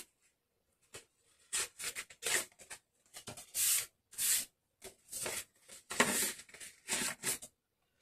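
Cardstock and paper being handled and pressed along a stiff fold, rustling and rubbing in a string of short irregular bursts.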